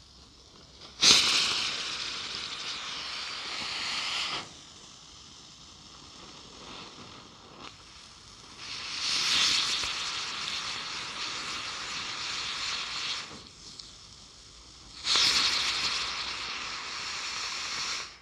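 Small disc-shaped ground firework spraying sparks with a loud hiss in three bursts of three to four seconds each: the first begins with a sharp pop about a second in, the second swells up about nine seconds in, and the third starts suddenly about fifteen seconds in. A quieter fizz runs between the bursts.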